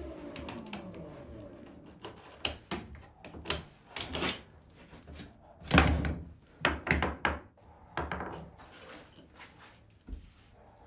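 A power tool's motor spinning down, its pitch falling as it fades in the first second. Then irregular knocks and thuds of wooden pieces being handled and set down, the loudest about halfway through.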